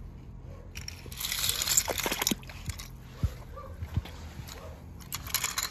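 Water splashing and sloshing for about a second and a half as a small toy car goes into the water, followed by a few light clicks.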